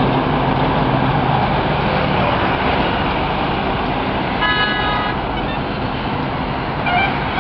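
Steady highway traffic noise heard from above, with a heavy truck's engine passing close below in the first second or so. A vehicle horn honks once, briefly, about four and a half seconds in.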